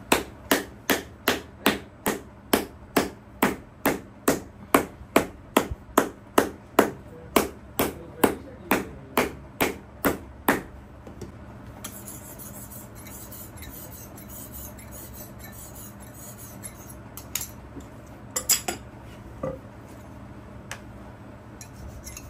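Shoemaker's hammer striking a stacked leather boot heel in a steady run of blows, a little over two a second, stopping about ten seconds in. After a pause, a knife blade scrapes on a sharpening block, followed by a few light knocks.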